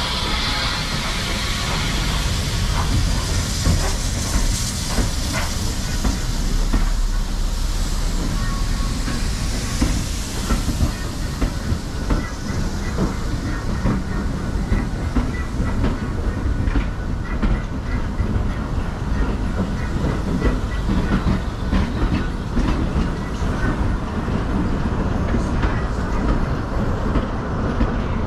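Steam-hauled passenger train passing: the tank engine's steam hiss fades in the first couple of seconds, then the carriages roll by with a low rumble and the repeated clickety-clack of wheels over rail joints.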